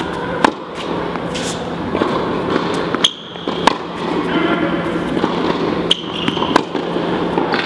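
Tennis ball being struck with a racket and bouncing on an indoor hard court: several sharp pops a few seconds apart, some in pairs. Short high squeaks of shoes on the court come between them.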